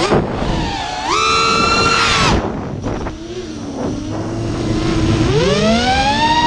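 Brushless motors (Xnova 2206 2500kv) spinning three-blade HQ 5x4x3 propellers on an FPV racing quadcopter, a whine rising and falling with throttle. It climbs sharply about a second in, drops away after about two and a half seconds, runs low, then rises again near the end.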